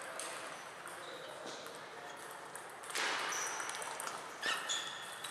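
Table tennis rally: sharp clicks of the celluloid-type ball on bats and table, with a louder pair of hits about four and a half seconds in, thin squeaks of shoes on the floor, and other tables' ball clicks in the hall.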